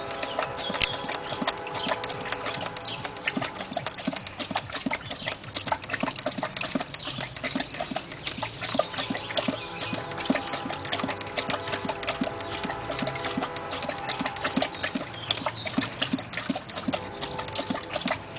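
A large dog lapping water from a plastic bucket in a quick, steady rhythm of wet laps and splashes that does not let up. The owner puts the nonstop drinking down to psychogenic polydipsia, excessive thirst.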